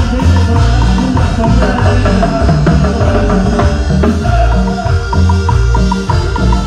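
Live band music played loud over a stage sound system: a steady bass line and keyboards under a brisk beat on timbales and hand percussion.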